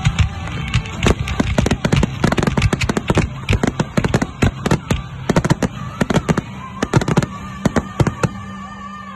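Aerial fireworks bursting in a rapid barrage, many sharp bangs a second, thinning out near the end.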